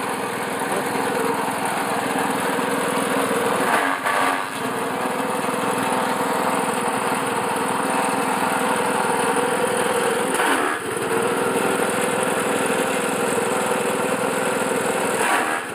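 Small engine-driven forage chopper running at speed while grass stalks are fed into it. The engine note dips briefly twice, about 4 and 10 seconds in, as material is fed through.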